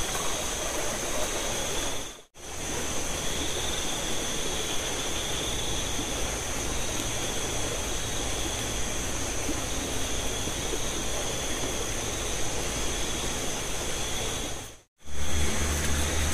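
Steady rushing noise of heavy rain and running water, with a steady high-pitched ringing above it. It cuts out briefly twice, about two seconds in and near the end. After the second break a low steady hum comes in under the rush.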